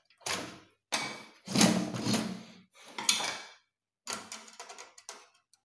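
A handful of separate knocks and clatters from hands, tools and the steel distribution-board enclosure being handled on a wooden bench, ending with a screwdriver working at the main breaker's terminal screw.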